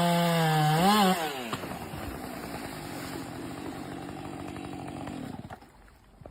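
A small engine buzzing loudly, its pitch dipping and rising in the first second or so, then running quieter and rougher until it fades out near the end.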